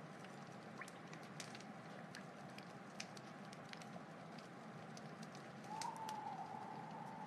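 Faint outdoor night ambience: a low steady hiss with scattered soft clicks and crackles. About six seconds in, a held tone rises briefly and then levels off.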